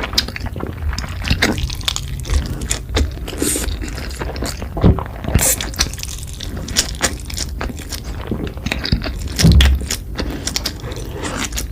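Close-miked eating of cheesy noodles and sausages: wet chewing and mouth smacks in many quick clicks, with a couple of short slurps.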